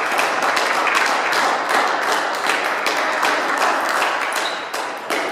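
Spectators in a sports hall applauding a won point, a dense patter of many hands clapping that dies away near the end.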